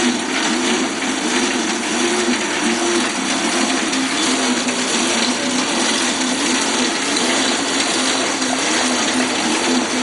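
Pedal-driven bicycle generator rig whirring steadily while being pedaled, with a hum that wavers up and down in pitch.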